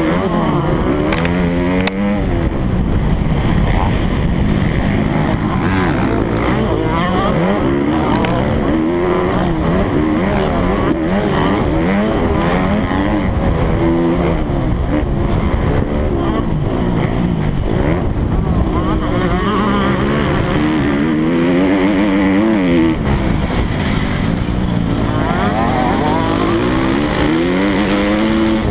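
Motocross bike engine at race pace, its pitch repeatedly climbing and dropping as the rider opens and closes the throttle and shifts through the gears.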